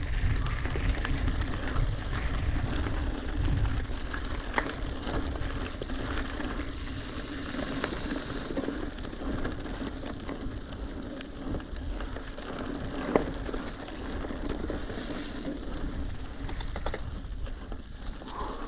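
Mountain bike rolling fast down a dirt trail: steady tyre noise on the ground with the clicking and rattling of the bike over bumps, and wind rumble on the helmet camera's microphone, heaviest in the first few seconds. A single sharp knock about thirteen seconds in.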